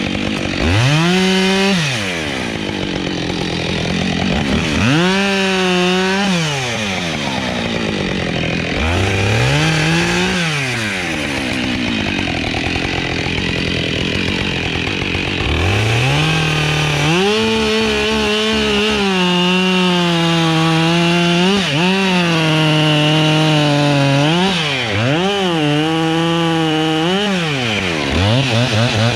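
Chainsaw revved up and let back down to idle several times, then held at high speed through a long cut in the second half, with a few brief dips in pitch.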